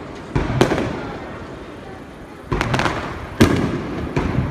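Aerial fireworks shells bursting during a display finale: two loud bangs shortly after the start, then a quick run of three or four more from about halfway through, each trailing off in a rumbling echo.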